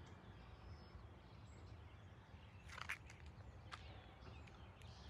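Near silence: faint outdoor ambience with a low hum, broken by a few brief faint sounds about three seconds in and again a second later.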